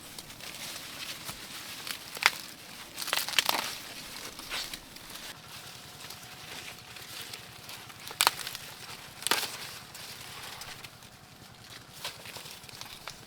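Dry corn stalks, leaves and husks rustling and crackling as corn is harvested by hand, with several sharp snaps: a couple near the start, then one a little after eight seconds and another about a second later.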